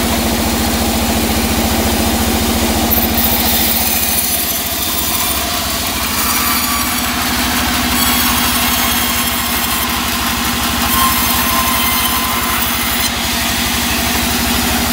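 Band sawmill running with a steady low hum. A few seconds in, the blade starts cutting a teak log and a high hiss of sawing joins the hum, then falls away again shortly before the end.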